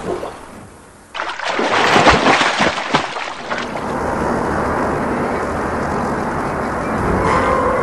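Thunderstorm: a crackling thunderclap breaks about a second in and rolls for a couple of seconds, then settles into steady rain noise.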